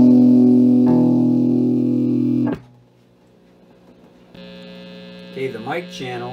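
Electric guitar chords played through a circa-1941 Gibson EH-185 tube amplifier, ringing loud and then cut off sharply about two and a half seconds in. After a short near-quiet pause, the amp's steady mains hum comes up about four seconds in.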